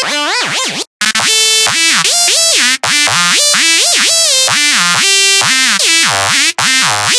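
Xfer Serum hard bass synth presets: bright, buzzy synth bass notes that slide up and down in pitch. The sound drops out briefly about one, three and six and a half seconds in, between presets.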